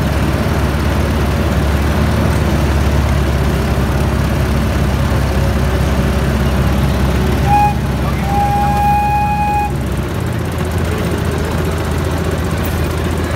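Ride-on miniature train running along its track with a steady low engine drone. About eight seconds in, its horn gives a short toot and then a longer one lasting nearly two seconds.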